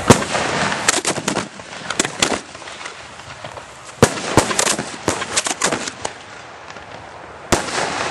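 Aerial fireworks shells going off at the launch site: a run of sharp bangs, some coming in quick clusters, with short lulls between them and a renewed volley near the end.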